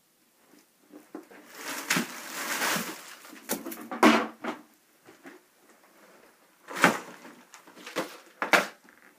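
Crinkling plastic packets of soft-plastic lures tossed onto a wooden table, with a sharp knock about four seconds in. Then clear plastic Flambeau tackle boxes are set down on the table with several hard clacks near the end.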